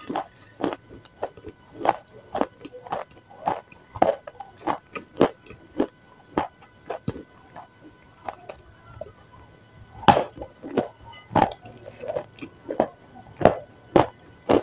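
Wet mouth sounds of a person chewing soft, doughy food coated in thick sauce: irregular smacking clicks and squishes, several a second, a few louder ones past the middle.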